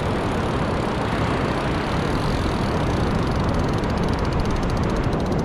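Steady wind rumbling on the microphone over surf noise from breaking waves. About three and a half seconds in, a fast, fine ticking joins.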